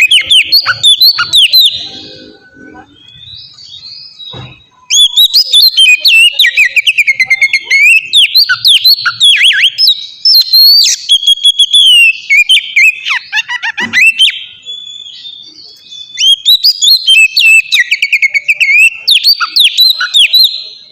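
Oriental magpie-robin singing loudly in long runs of fast, varied whistled phrases. The song breaks off about two seconds in and resumes about five seconds in, then pauses again briefly around fourteen seconds.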